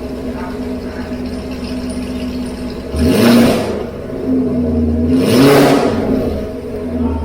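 2016 Camaro SS's 6.2-litre LT1 V8 idling through new long tube headers and an X-pipe, then revved twice, briefly about three seconds in and again for longer about five seconds in, before settling back to idle.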